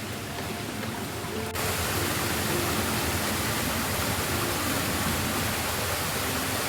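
Steady, even rushing noise that starts abruptly about a second and a half in, after an edit, and holds level throughout.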